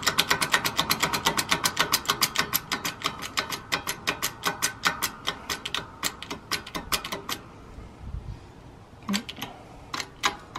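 Hydraulic shop press being pumped down to press a bearing into a motorcycle jackshaft: a fast, even clicking, about eight clicks a second, that stops about seven seconds in, followed by a few scattered clicks near the end.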